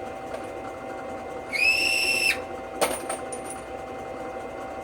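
Small drill press motor running with a steady hum. About a second and a half in, a .270 brass case is held to the spinning deburring and chamfering tool and the cut gives a high-pitched whine for under a second. A sharp click follows about a second later.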